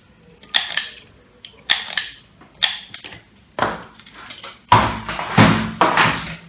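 Plastic wire connectors being worked loose from an air-conditioner inverter control board: a series of sharp clicks about once a second, then louder rustling and scraping of handling near the end.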